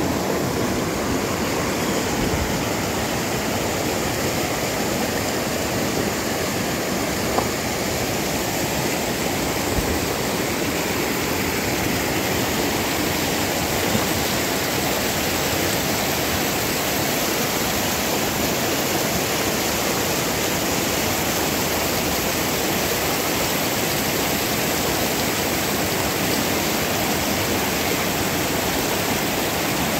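River water rushing over rocks in a cascade: a steady, unbroken rush of white water.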